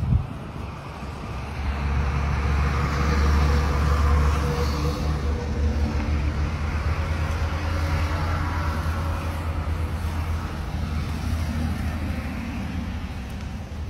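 Motor vehicle engine rumbling with road noise, swelling about three to four seconds in and slowly easing off. A short knock comes at the very start.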